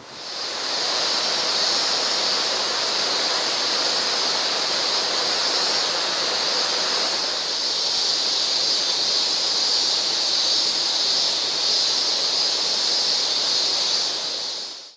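Mountain river water rushing over rocks: a steady rushing noise with an even high hiss on top. It fades in at the start and fades out at the end.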